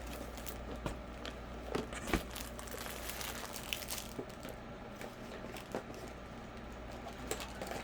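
Crinkly rustling of things being handled, with scattered light clicks and a sharper knock a little over two seconds in.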